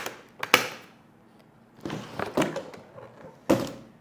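Hard-shell carry-on suitcase being handled on a tabletop: sharp knocks as the lid is shut, a cluster of smaller clicks and rattles, then a heavier thud about three and a half seconds in as the case is stood upright on its wheels.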